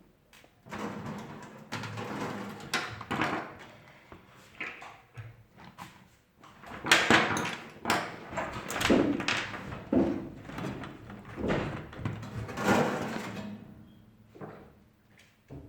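Irregular scraping, rattling and knocking of metal parts being handled as a thermostat is refitted inside an electric oven, busiest in the middle.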